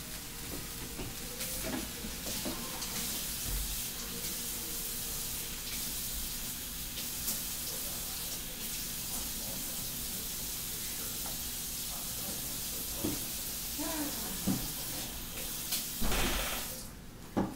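Food sizzling in hot oil in a frying pan, with a few light clicks and scrapes of a utensil. The sizzle cuts off suddenly near the end, just after a louder knock.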